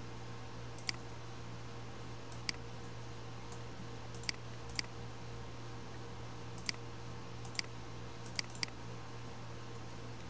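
About eight sharp, separate clicks of computer controls, irregularly spaced with some in quick pairs, over a steady low hum.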